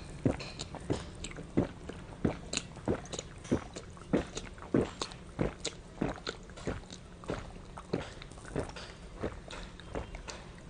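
A person chewing food close to the microphone, with short sharp chomps about two to three a second that grow softer near the end.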